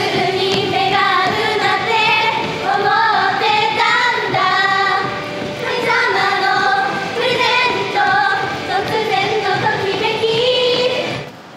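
Pop song with young female voices singing a melody over backing music, cutting off abruptly near the end.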